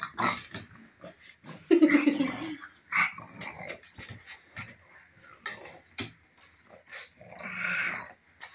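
Pug growling in short, irregular bursts, loudest about two seconds in.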